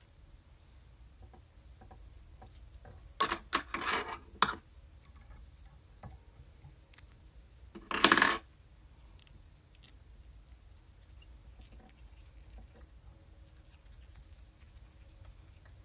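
Small handling noises from tying marabou onto a hook at a fly-tying vise: a cluster of short scrapes and clicks about three seconds in, and one louder brief rasp about eight seconds in, with faint ticks between.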